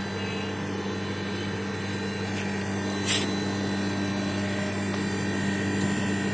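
General split air conditioner's outdoor unit running with its compressor and fan, a steady hum, ahead of pumping the refrigerant down. A short sharp click-like noise about three seconds in.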